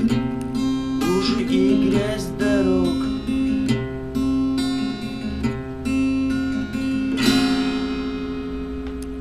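Instrumental outro on acoustic guitar: strummed chords with a wavering, sliding melody line over them. A final chord is struck about seven seconds in and rings out, fading.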